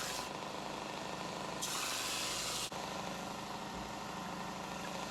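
Belt sander motor running steadily, with a harsh hiss at the start and again for about a second near the middle as the steel blade is pressed against the belt to clean it off.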